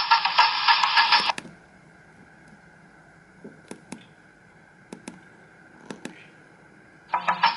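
Digma LINX A105N phone's loudspeaker playing its incoming-call ringtone melody, which breaks off about a second and a half in. Then a faint steady whine with several sharp clicks, and the melody starts again near the end. The melody keeps replaying: a firmware bug with the 'ring and vibrate' alert setting that leaves the ringtone playing until the phone is switched off.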